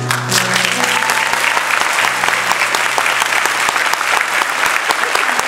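Applause from a concert hall audience and the choir on stage, a dense steady clatter of many hands. Under it, a held musical chord rings on and fades out about two seconds in.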